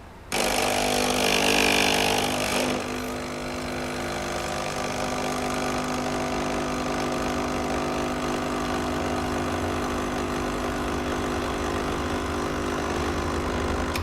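Espresso machine's 20-bar pump running while it pushes water through a coffee capsule to brew: a steady mechanical hum that cuts in suddenly, is louder and harsher for the first two or three seconds, then runs evenly.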